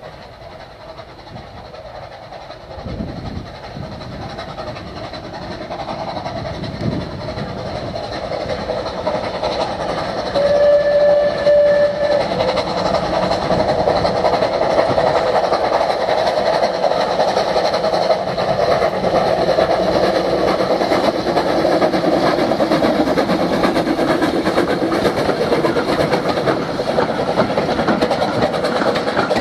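A train hauled by Andrew Barclay steam tank locomotives approaching and passing close by, the sound of the engines working growing steadily louder over the first ten seconds. One short steam whistle blast of about a second and a half comes about ten seconds in, and the coaches then run past with a loud continuous clatter.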